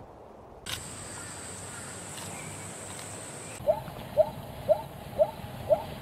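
Zebra calling: five short, rising yelps about half a second apart, loud over a steady background hiss, starting a little past the middle.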